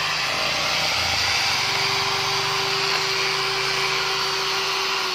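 Corded electric hand drill running steadily at full speed, its spinning brush scrubbing stubborn carbon deposits out of the combustion chamber of a Honda Tiger motorcycle cylinder head. A constant motor whine under a harsh scratchy hiss.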